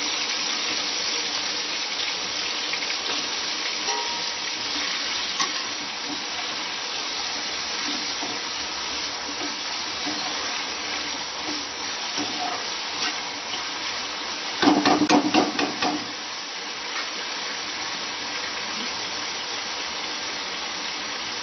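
Potato wedges sizzling steadily as they fry in hot oil in a steel kadhai over high heat. About two-thirds of the way through, a metal utensil stirs them, scraping and clinking against the pan for about a second and a half.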